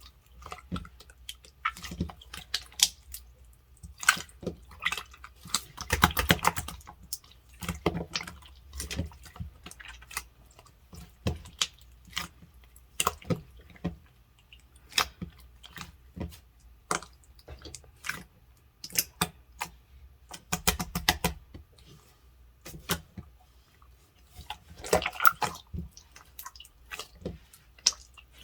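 Firm gold slime being pressed and squeezed by hand, giving many sharp clicks and pops, with denser crackling runs a few times.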